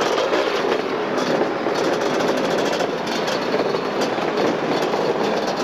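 Many two-stroke motocross bike engines running together on the starting line, a dense steady din as the field warms up before the start.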